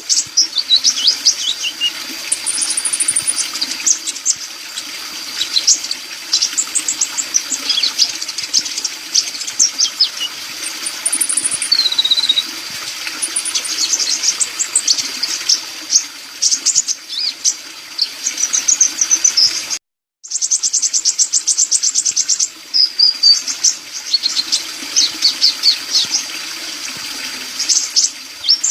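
Sunbird ('kolibri' in Indonesian birdkeeping) singing a fast, high, twittering song of chirps and trills, over a steady rushing background like running water. The song breaks off completely for a moment about two-thirds of the way through.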